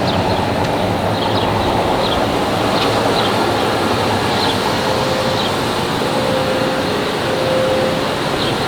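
Steady city traffic rumble, loud and unbroken, with a few short high chirps scattered through it and a faint held tone in the second half.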